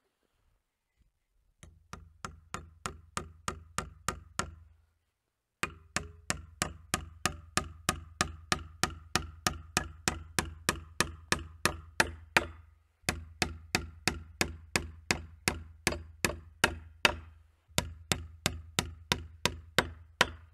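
Hammer driving nails through a steel bracket plate into a timber post: runs of steady blows, about three a second, with short pauses between the runs, the blows growing harder within each run.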